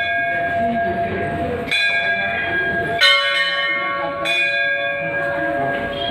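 Brass temple bell struck twice, a little over a second apart, each strike ringing on in several steady tones; the second strike is the louder.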